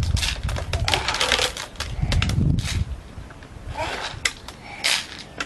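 Small gravel and seeds clicking and rattling on a plate as a child stirs and picks through them with her fingers, an irregular run of short gritty clicks and rustles.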